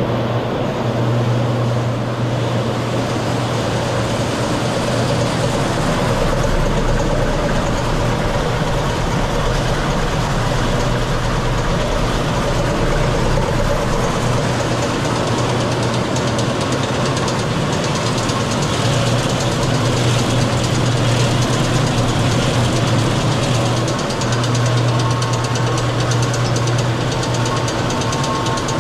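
Drum-type pea shellers running steadily on a load of cream peas: a low motor hum under a dense, even rattle of pods tumbling through the rotating drum.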